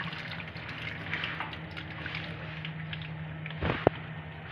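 Water pouring from an Enagic water ionizer's outlet hose into a stainless steel sink, a steady splashing hiss over a low hum, with one short knock about three and a half seconds in.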